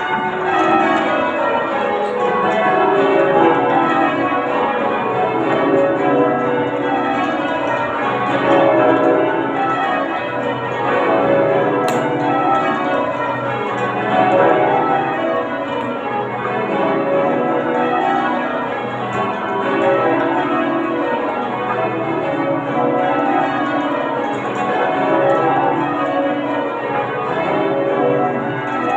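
Change ringing on St Mary Redcliffe's ring of twelve full-circle church bells. The bells strike one after another in rows that run down the scale from treble to tenor, over and over at an even pace.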